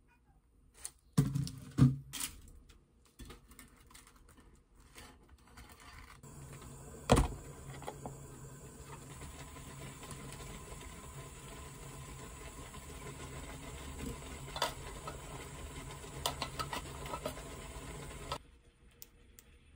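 Kitchen plating sounds: scattered clicks and knocks of utensils, food and a ceramic plate being handled, with a sharp knock about 7 s in and light scraping clicks of a wooden spoon in a corn can near the end. A steady low hum runs under them from about 6 s in and cuts off just before the end.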